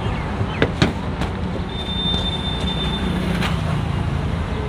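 Street traffic running as a steady low rumble, with a few light knocks. A thin, high, steady squeal comes in about two seconds in and lasts about a second and a half.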